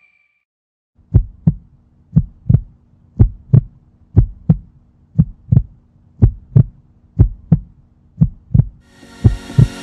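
Heartbeat sound effect: paired lub-dub thumps about once a second over a faint low hum, starting about a second in. Near the end a rising hiss swells in and the beats quicken.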